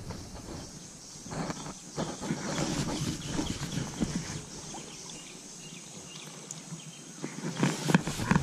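Irregular footsteps on a shallow, stony riverbed, with a few sharper knocks near the end.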